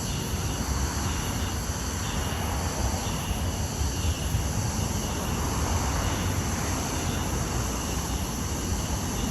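Crickets chirping in a steady high chorus over a louder, steady low rumble.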